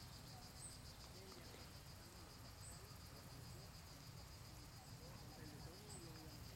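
Faint, steady chirring of insects, a fast even pulsing high in pitch, over a low rumble.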